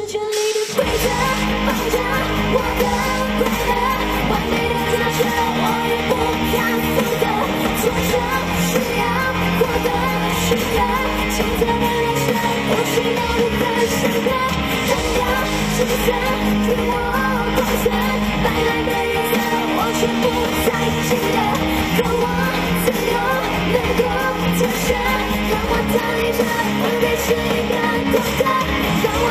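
A woman singing live into a handheld microphone over accompanying band music, with a steady low bass line throughout.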